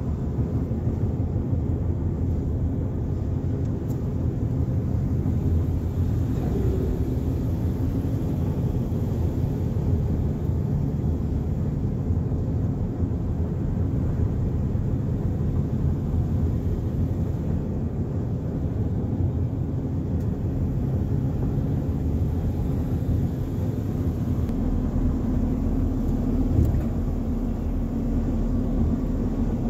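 Steady low rumble of a car's engine and tyres on the road, heard from inside the cabin while driving. A single brief thump near the end.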